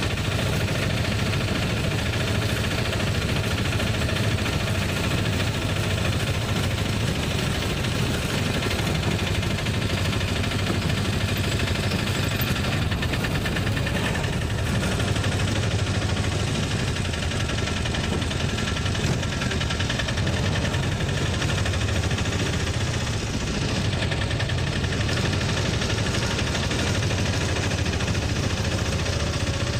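Auto-rickshaw engine running steadily under way, heard from the driver's seat, with a constant low rumble.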